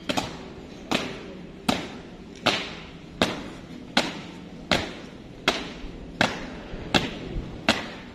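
Marching feet of a three-person flag squad stamping in step on a hard paved court, about one stamp every three quarters of a second, some strikes slightly doubled where the marchers are not quite together, each with a short echo.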